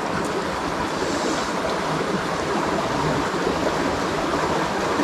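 Shallow rocky river flowing: a steady rush of running water.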